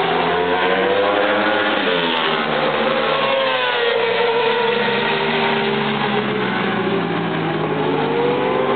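Racing car engine running hard on the circuit, its note falling and rising repeatedly as it slows and speeds up, climbing again near the end.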